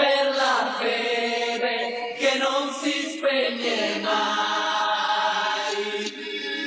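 Many voices chanting together in a pitched, sustained chant, starting suddenly, with a short dip about six seconds in.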